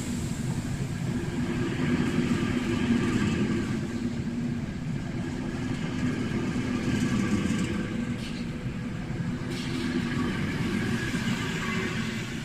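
Passenger coaches rolling past a platform: a steady rumble of steel wheels on the rails.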